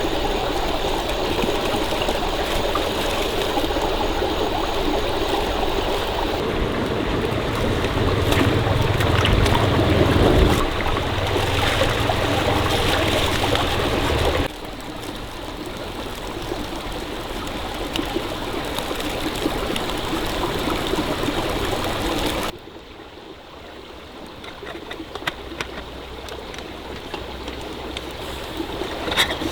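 Stream water flowing over stones, a steady rushing and trickling. It drops abruptly in level about halfway through and again about three-quarters through, and a few light clicks come near the end.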